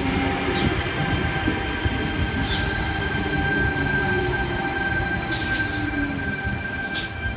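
Sydney Trains Tangara electric multiple unit running slowly along the platform: a steady high whine, with a low tone that falls in pitch as the train slows. Three short hisses of air come through about two and a half, five and a half and seven seconds in.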